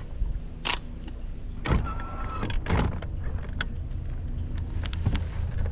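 A baitcasting rod cast: a quick swish and the reel's spool running out, then a few short clicks and rattles as the reel is worked, over a steady low hum.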